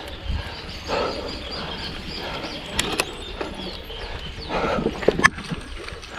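Outdoor ambience with a few sharp clicks or knocks, the loudest about five seconds in.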